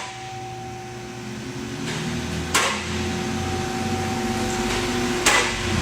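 Steady mechanical hum with two fixed pitched tones over a low rumble, growing a little louder, broken by two short hissing bursts about two and a half and five seconds in.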